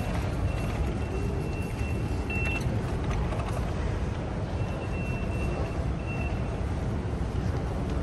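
Busy Underground station concourse ambience: a steady low rumble with faint footsteps and clicks. A thin, high, steady tone sounds twice, about two seconds each time.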